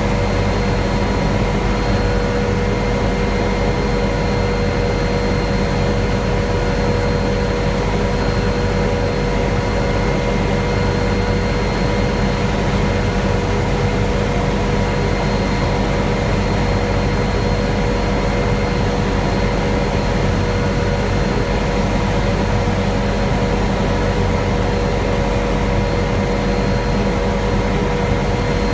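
Helicopter in steady cruise, heard from inside the cabin: a loud, unchanging drone of rotor and engine with a steady high whine over it.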